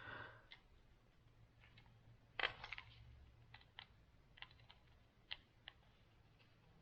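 Faint, irregular clicks and light taps, about a dozen over a few seconds, the loudest about two and a half seconds in: a spline roller pressing spline into the groove of a window screen frame.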